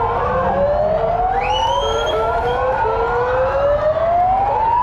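Siren wailing, its pitch rising slowly over a couple of seconds at a time and turning to fall near the end, with more than one wail overlapping.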